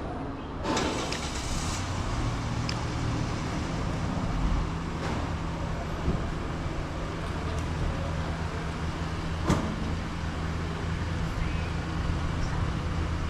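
Car engine and road noise heard from inside a moving vehicle: a steady low hum with tyre noise, and a single sharp click about ten seconds in.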